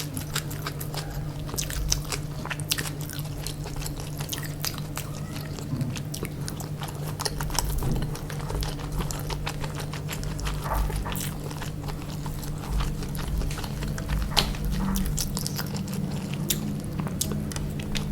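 Close-miked chewing and biting of chicken biryani, a steady run of small wet clicks and smacks of the mouth.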